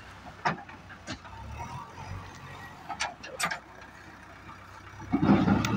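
Diesel engine of a JCB 3DX backhoe loader running low and steady, with a few sharp clicks and knocks of ballast stone. About five seconds in, a much louder rushing crunch of stone begins as the loader works the ballast.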